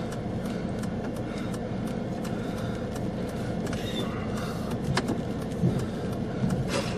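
Steady rush of strong wind around a car close to a tornado, with scattered sharp taps of rain and debris striking; one sharper tap about five seconds in.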